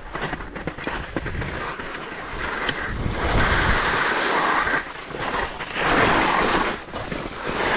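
Skis sliding and scraping over soft spring snow, a steady hiss that grows louder in two long swells, about three seconds in and again about six seconds in.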